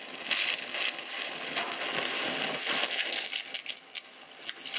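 Aluminum stick-welding arc from an Eagle 414 electrode, crackling and sizzling with irregular sharp pops.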